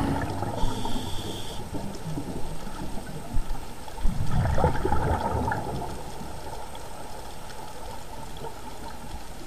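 Underwater sound of scuba divers' exhaled air bubbles gurgling, loudest in a burst about four to five seconds in, then settling to a steadier low rush.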